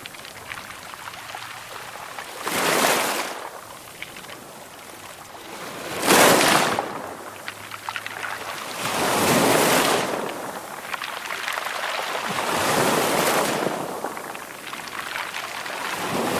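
Calm sea waves breaking and washing up a shore, one rushing wash every three to four seconds, the strongest about six seconds in.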